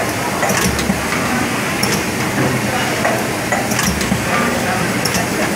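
Carton sleeving machine running: a steady mechanical din with short pneumatic hisses and clicks every second or two, and a low thud about every three seconds as each carton cycles through.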